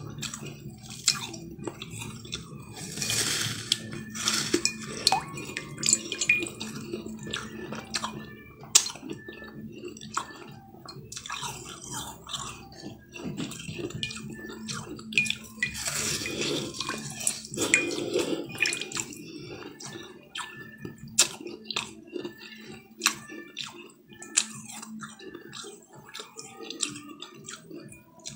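A block of ice being bitten and crunched with the teeth: sharp cracks and crunches at irregular intervals. A steady low hum runs underneath.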